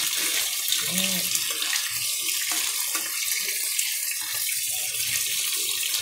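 Skewered pork belly frying in oil in a pan: a steady, high-pitched sizzle with small crackles, and chopsticks turning the skewers.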